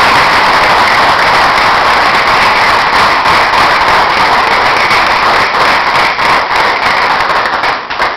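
An audience applauding steadily, dying down near the end.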